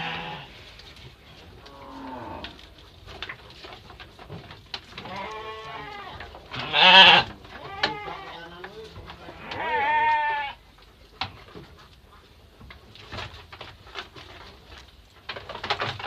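Sheep bleating in a pen, several wavering bleats with the loudest about seven seconds in, amid scattered light knocks.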